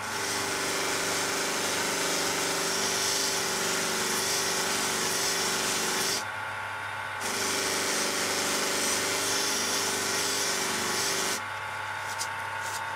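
Bench buffing machine motor running steadily while a Benchmade Mini Griptilian blade is held against its spinning buffing wheel charged with white polishing compound, making a rushing, rubbing noise over the motor hum. This is the mirror-polishing stage of the blade flat. The rubbing breaks off for about a second some six seconds in, resumes, and stops about a second and a half before the end, leaving only the motor hum.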